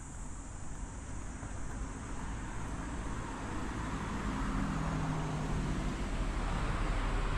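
Street traffic: a car driving past on the road, its engine and tyre noise growing louder over the second half.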